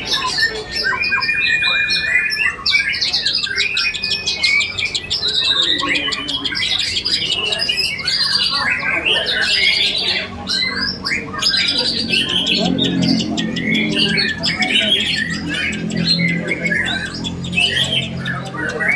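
A songbird contest chorus: many caged birds, white-rumped shamas among them, singing and calling over one another in a dense, unbroken tangle of trills, whistles and harsh notes.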